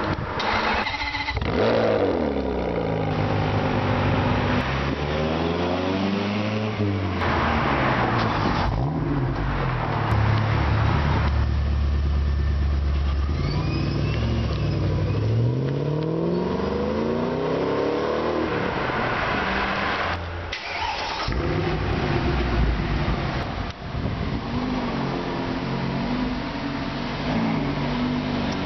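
Several cut-together clips of sports-car engines revving and accelerating, the engine pitch climbing and dropping again several times. Midway a silver Shelby Mustang's V8 pulls away. In the last few seconds a Lamborghini Gallardo's V10 runs at low speed with a steadier note.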